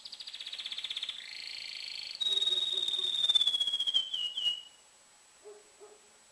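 Male canary singing one excited song phrase of rapid trills. A louder trill that falls slightly in pitch starts about two seconds in, and a few short notes end the phrase about five seconds in. This is the fired-up song used to bring hens into breeding condition.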